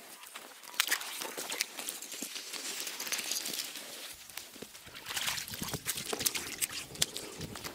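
Crunching and crackling of snow and slushy ice, with many scattered sharp clicks; from about four seconds in, a heavier low rumble joins it.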